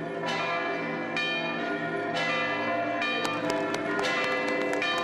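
Church bells ringing, several bells struck one after another, each note ringing on under the next. The strikes come more often about three seconds in.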